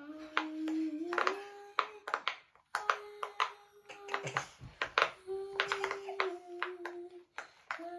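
A song played from a phone speaker, with long held melody notes and many sharp claps.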